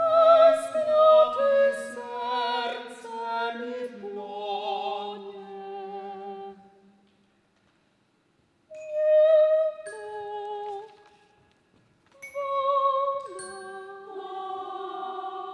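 Several voices singing sustained chords in a classical choral style, with vibrato. They sing three long phrases with short silences between them, the second coming in suddenly about nine seconds in.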